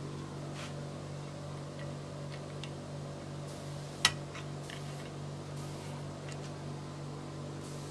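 A steady low hum with a few faint ticks, and one sharp click about four seconds in.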